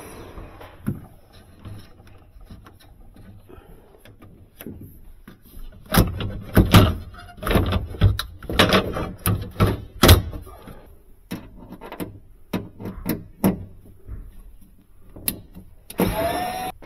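Plastic refrigerator panels and trim being handled: a busy run of knocks and clatter in the middle, then scattered taps. Near the end a small power screwdriver whirs briefly with a rising pitch as it drives a screw in the ceiling light panel.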